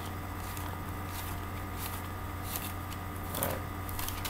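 Bible pages being turned while looking up a verse: several soft paper rustles, the most distinct about three and a half seconds in, over a steady low electrical hum.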